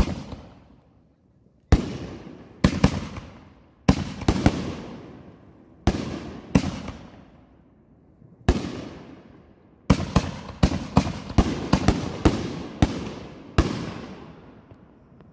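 Consumer aerial fireworks going off in a series of sharp bangs, each trailing off, spaced a second or two apart at first and then in a fast run of about a dozen from about ten seconds in.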